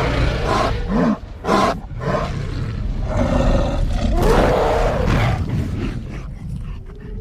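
Dinosaur roars and growls from a film's sound effects: a string of loud, rough roars, with long ones about three and four and a half seconds in, easing off near the end.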